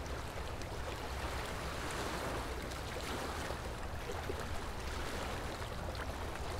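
Steady rush of water with a deep rumble underneath, like sea or a boat's wake.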